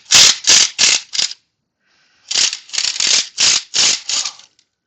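Impact gun hammering on a hardened bolt extractor to back out a broken exhaust bolt, fired in short trigger bursts: a quick run of about five, a pause of about a second, then about seven more.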